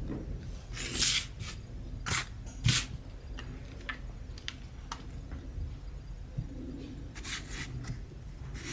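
Handling noise as a pump shotgun is lifted off its wooden display stands, turned around and set back down. It is a few short scrapes and rustles with a knock, the loudest about a second in and a little under three seconds in, and more near the end.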